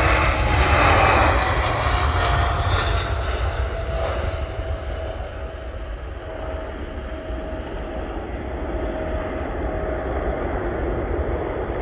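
Boeing 777 twin-jet with GE90 engines at takeoff thrust, lifting off and climbing away. The engine noise is loudest in the first couple of seconds, then fades to a steady rumble with a thin whine running through it.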